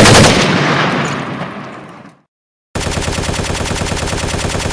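Gunfire sound effects: a sudden loud blast that fades away over about two seconds, then after a brief silence a sustained burst of rapid automatic fire.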